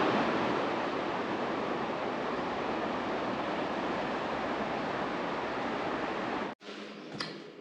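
Steady rushing water, an even wash of noise that cuts off suddenly about six and a half seconds in.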